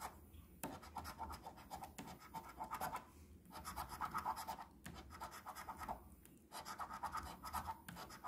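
A coin scratching the coating off a paper scratch-off lottery ticket, in runs of quick back-and-forth strokes with short pauses between them.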